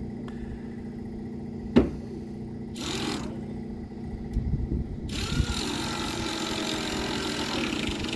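A heavy machine engine idling steadily, with a single sharp knock about two seconds in and a stretch of rushing hiss over the last three seconds.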